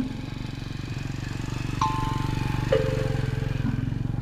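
A Mitsubishi Pajero's diesel engine running steadily with a low, evenly pulsing rumble. Over it, background music with two sparse ringing notes, a higher one and a lower one, a little under a second apart.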